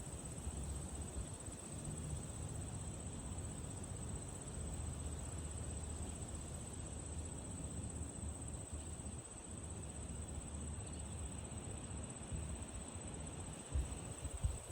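Insects trilling in one steady high, unbroken pitch over the rustle of wind through tall prairie grass. A low, uneven rumble of wind runs underneath, and a couple of soft knocks come near the end.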